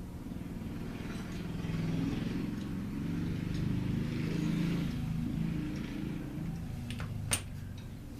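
A low motor hum, engine-like, that swells for a few seconds and then eases off, with a single sharp click near the end.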